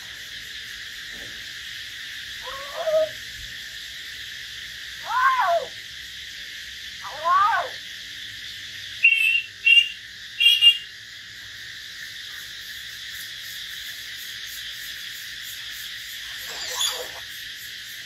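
Hill myna and white-rumped shama calling: a few separate low whistled calls that slide up and down in pitch, a couple of seconds apart, and a run of three quick higher notes about halfway through, over a steady high hiss.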